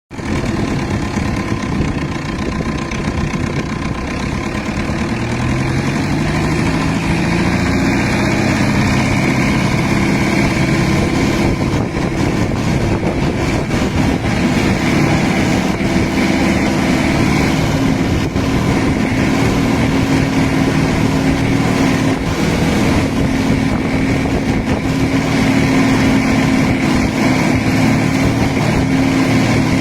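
Car engine fitted in a boat, running steadily. Its pitch climbs between about five and eight seconds in, then holds at the higher speed.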